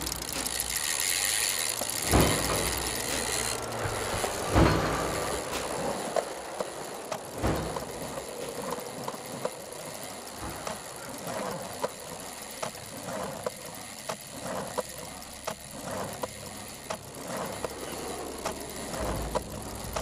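Clockwork gear sound effects: a few heavy knocks about two, four and a half and seven and a half seconds in, then a run of small, quick clicking and ratcheting like turning cogs.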